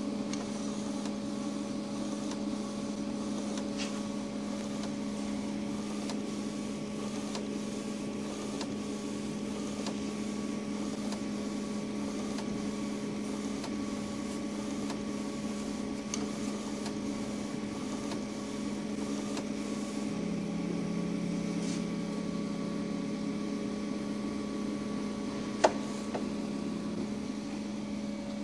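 Pangoo Jet A3 UV flatbed printer running, printing a layer of white ink: a steady machine hum with faint ticking as the print head carriage and its UV curing lamp move over the bed, and one sharp click near the end.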